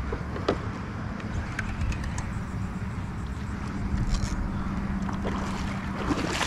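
Spinning reel being cranked against a hooked redfish, with a steady whirring hum, and the fish splashing at the surface a little before the end.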